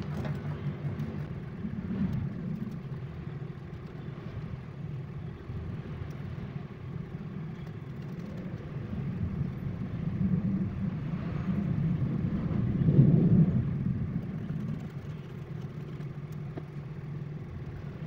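Steady low background rumble that swells and fades about thirteen seconds in, with a few faint clicks of small screws being handled and driven into a laptop case.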